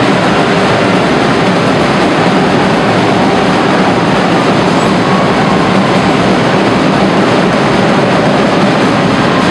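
Loud, steady din of an arena crowd, with no single sound standing out.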